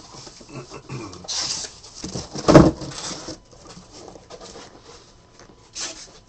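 Sealed trading-card boxes and their cardboard case being handled on a table: rustling and light knocks, with one heavy thud about two and a half seconds in.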